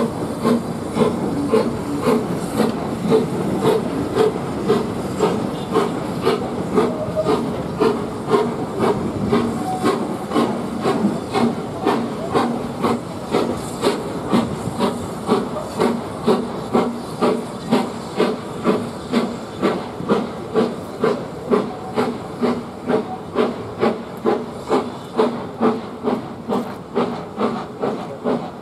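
Steam locomotive working a train away from the station: a steady, regular chuffing exhaust at about two beats a second over a hiss of steam.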